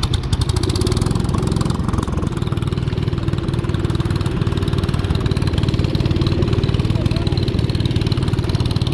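An engine running steadily at a fast, even firing beat.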